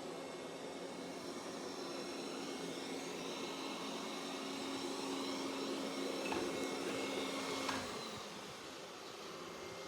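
Roborock Qrevo S robot vacuum running, a steady whir with a faint hum. It grows louder for a few seconds, then drops off with a click about eight seconds in.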